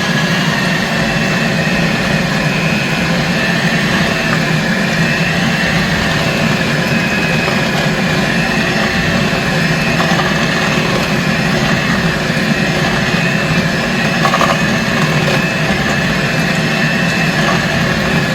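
Electric blender motor running steadily on a raised speed setting, a constant loud whine.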